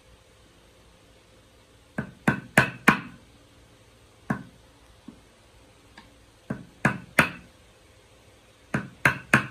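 Hammer blows on a wood chisel driven into a board: sharp knocks in quick runs. Four come about two seconds in, then single blows, then runs of three near the seven-second mark and near the end.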